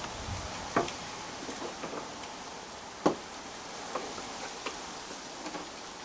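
Steady hiss of rain with scattered sharp clicks and taps, the loudest about three seconds in.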